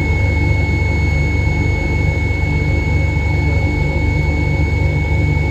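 Steady industrial machinery drone: a deep low hum with a constant high-pitched whine above it, unchanging throughout.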